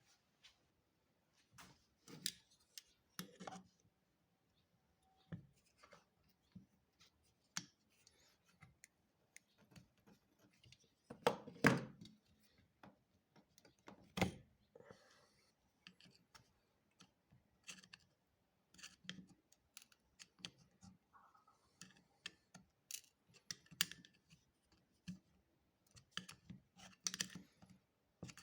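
Irregular small clicks, taps and knocks of hand tools and metal parts being handled during motorcycle carburetor work, with a louder cluster of knocks about halfway through.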